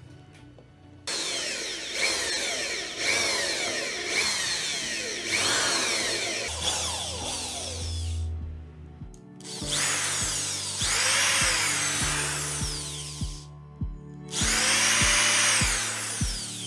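Handheld electric drill boring holes into wood, starting about a second in and running in three bursts with short stops, its motor whine rising and falling as the trigger is worked.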